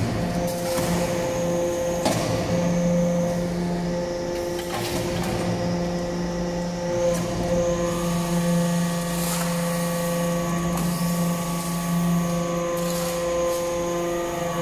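Hydraulic power unit of a vertical metal-chip briquetting press running with a steady, many-toned hum, with scattered knocks and clicks on top.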